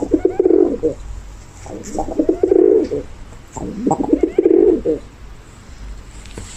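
Pigeon cooing: three low, throaty, pulsing coo phrases in a row, then a short pause near the end.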